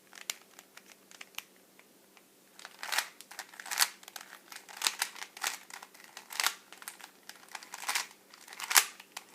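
Rubik's cube being twisted by hand, its plastic layers clicking. A few light clicks come first, then from about two and a half seconds in, quick clattering turns follow one another about every half second to second.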